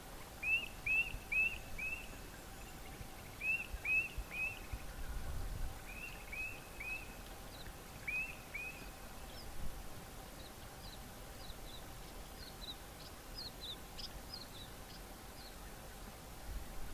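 Birds calling: groups of two to four short, clear call notes repeated several times in the first half, then a scatter of higher, thin descending notes. A faint steady hum runs underneath.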